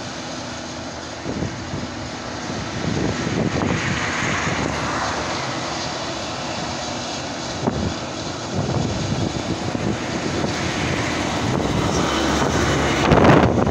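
Claas Jaguar forage harvester working a maize field, heard from a distance as a steady engine drone that grows louder toward the end.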